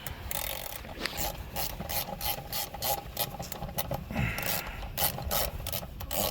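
Hand ratchet wrench clicking in a steady run of strokes, a few clicks a second, as 10 mm bolts are run back in.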